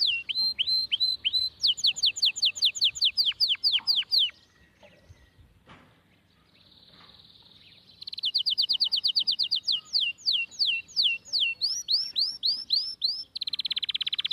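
A songbird singing: fast runs of repeated downward-sweeping whistled notes, several a second. The song breaks off about four seconds in, resumes about eight seconds in, and ends in a short buzzy trill.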